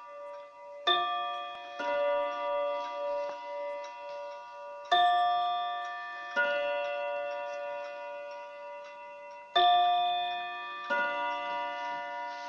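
Jantar mechanical wall clock chiming: struck tones ring out and slowly die away, coming in pairs of strokes about four and a half seconds apart, over the ticking of its pendulum movement.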